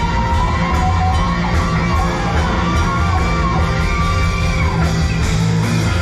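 Live rock band playing on stage: drums, bass and guitars going steadily under a bending lead melody line.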